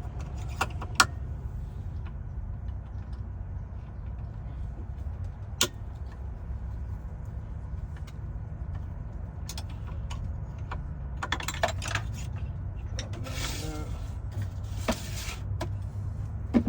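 Scattered sharp metallic clicks and short bursts of rattling and scraping over a steady low hum: a cutter being taken out of a computerized key-cutting machine for calibration.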